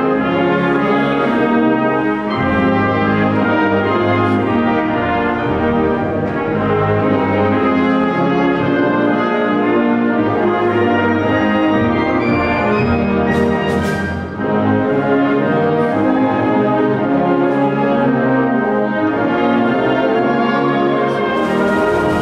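Wind orchestra of brass and woodwinds playing a school anthem in full, sustained chords, the brass leading.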